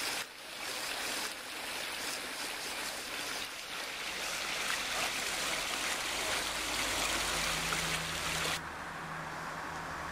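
Water running down a narrow stepped stone channel, a steady rushing. A steady low hum joins near the end, and the rushing cuts off abruptly shortly before the end.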